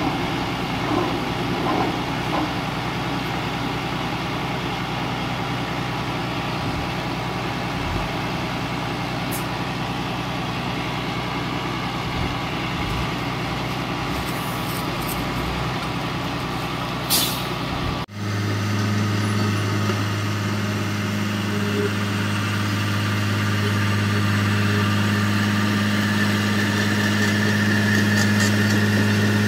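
Diesel engines of heavy earthmoving machinery running steadily. Past the middle comes a brief hiss, then the sound cuts abruptly to a louder, more even engine drone with a strong low hum.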